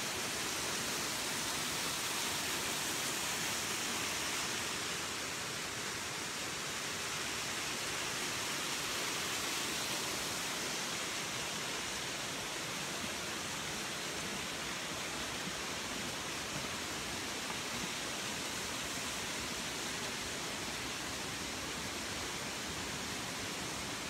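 Steady rushing of the Moness Burn's waterfall and river water in the gorge.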